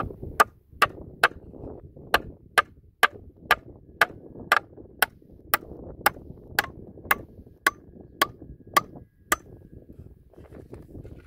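Hammer blows, about eighteen in a steady run of roughly two a second with a short pause after the first three, each knock with a brief metallic ring; they stop near the end.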